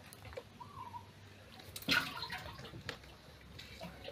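A live snakehead fish moving on a wet tiled floor: soft wet sounds with one sharp wet slap about two seconds in.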